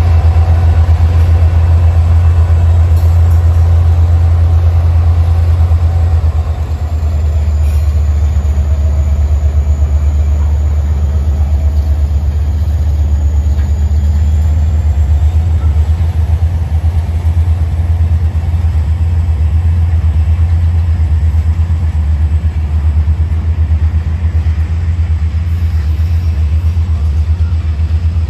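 An engine running steadily with a deep, even pulse; it drops a little in level about seven seconds in.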